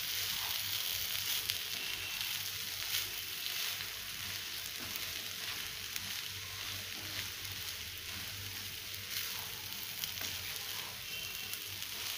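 Rice and soya chunks in masala sizzling in a nonstick pan, stirred with a wooden spatula, with scattered scrapes and taps of the spatula against the pan.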